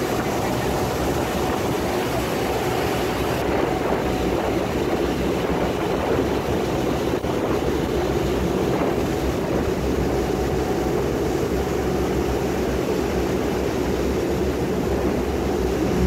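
Tour boat's engine running steadily under way, with the continuous rush of its wake water.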